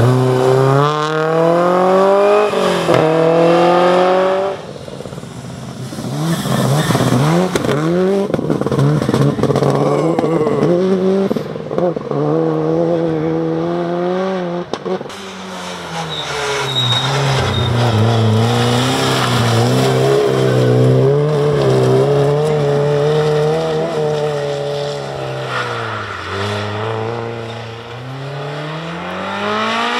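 Rally car engines revving hard under full acceleration, the pitch climbing through each gear and dropping back at every shift. Midway an engine holds a high, steady note, and near the end the pitch falls away and then climbs again.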